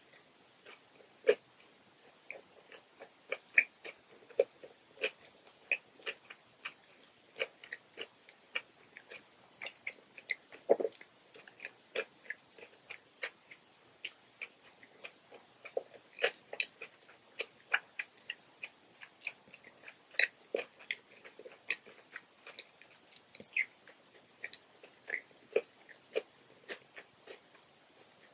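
Close-miked mouth sounds of someone chewing a cucumber roll: irregular wet crunches and clicks, several a second.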